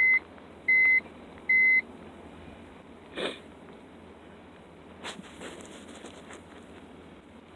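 Electronic beeping: a high, even tone repeated three times about 0.8 s apart, then stopping, followed by a few faint knocks of handling.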